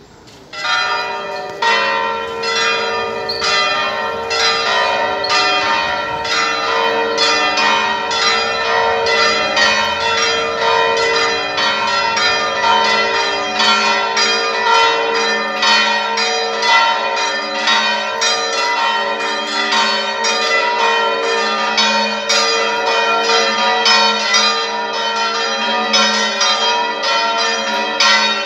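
The four bells of the Cathedral of San Cerbone's bell tower ringing together a distesa, swung in a full peal (a plenum). The bells break in about half a second in, and their strokes then overlap in a dense, continuous peal.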